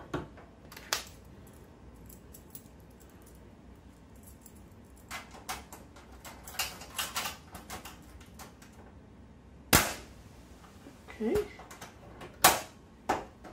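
Metal draw latch on a diesel heater's case being worked and clamped shut: scattered light clicks and rattles of the metal clip, then two loud sharp snaps in the last few seconds.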